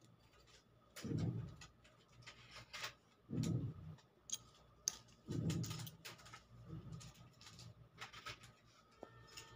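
Gold rings clicking faintly against each other and the paper as they are picked up and sorted by hand, in short scattered clinks, with a few low muffled bumps of handling.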